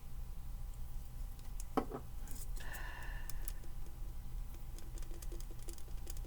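Light clicks and taps from handling small plastic craft items at a table, with a brief squeak about three seconds in, over a low steady hum.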